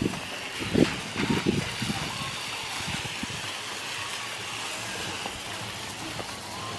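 Garden hose running through a hose-end ready-to-spray insecticide bottle, giving a steady hiss of spray onto leafy plants. A few low bumps near the start.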